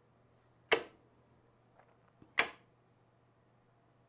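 Electrical contactors in a load-controller box clacking shut and open, three sharp clacks about a second and a half apart as the 24 volt control circuit switches the lamp loads, with a faint low hum underneath.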